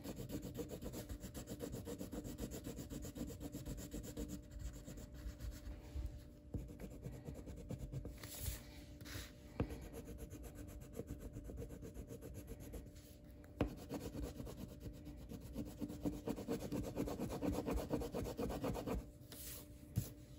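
Rapid back-and-forth scribbling of a coloring tool shading an area on paper, with brief pauses and a couple of light taps.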